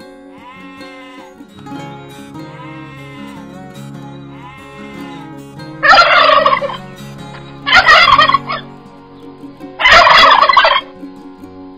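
A goat bleating several times, then male domestic turkeys gobbling: three loud gobbles, each just under a second, about two seconds apart, starting about six seconds in.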